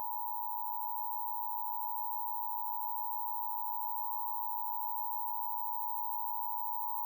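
Emergency Alert System attention signal: a steady two-tone alarm of 853 Hz and 960 Hz sounded together and held unbroken, the tone that heralds the voice message of a required monthly EAS test.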